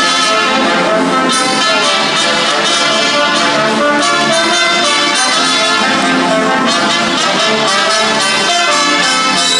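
Brass band music playing a lively cacharpaya, an Andean folk dance tune, without a break, with trumpets and trombones prominent.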